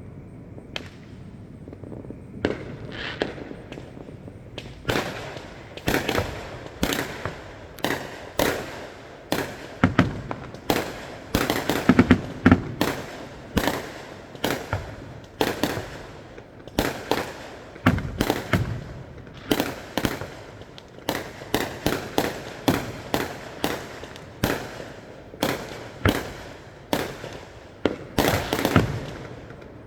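Aerial fireworks display: a rapid run of sharp bangs starting about five seconds in, often more than one a second, each trailing off briefly, with a few clustered volleys.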